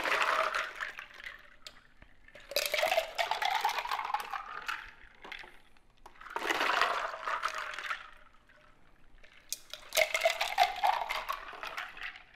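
A Bloody Mary with ice is poured back and forth between a glass and a plastic cup to mix it. There are four pours of one to three seconds each, with ice clicking and rattling through them and the pitch rising in some as the vessel fills.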